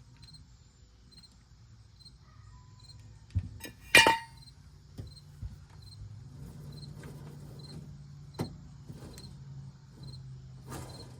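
Hammer blows on a seized rear brake drum of a Toyota Prius: a few separate knocks, the loudest a metallic clang with a short ring about four seconds in, and another sharp knock near the end. Crickets chirp steadily in the background.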